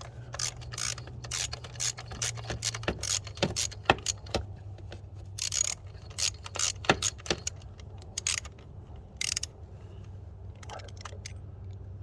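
Ratchet wrench with a 10 mm socket clicking in short irregular runs as the single bolt holding an ignition coil is worked loose, over a low steady hum.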